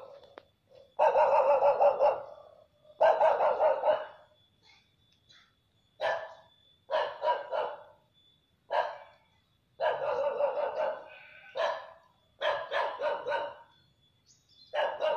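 A dog barking repeatedly, in short bouts of a few barks each with brief pauses between them.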